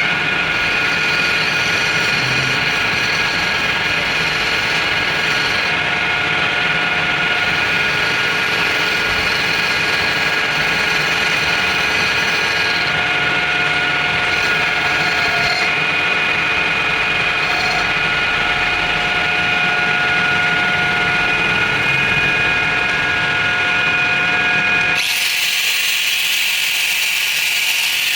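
A workshop power tool running steadily with a constant motor whine; about three seconds before the end the sound turns to a harsher hiss.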